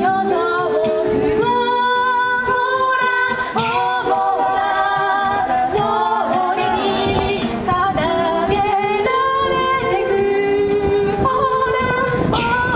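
A cappella vocal group of women and a man singing together in harmony into microphones, amplified through PA speakers; several voices hold chords that shift every second or two.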